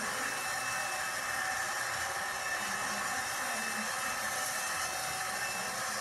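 Upright vacuum cleaner running steadily, played back from an old camcorder recording through a laptop's speakers, so it comes through as an even hiss.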